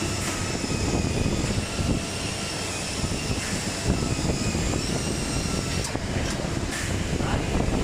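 Shoe-sole sanding robot running steadily: a grinding machine noise with a faint motor whine that wavers slightly in pitch.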